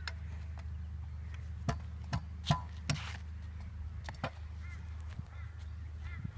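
Scattered sharp knocks and clacks of a stunt scooter's deck and wheels on the concrete ramp and its metal coping, the loudest about two and a half seconds in, over a steady low rumble. A bird calls a few times near the end.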